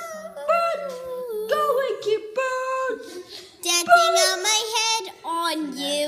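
A child singing in short, wavering phrases that rise and fall in pitch, loudest a little after the middle.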